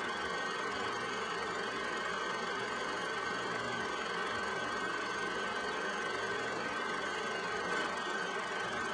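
A steady, unchanging droning hum and hiss with a faint high whine held throughout.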